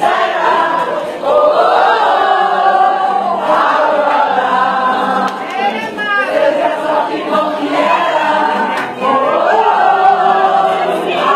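A group of people singing together in unison, in phrases a few seconds long, with short breaks about a second in and again near the end.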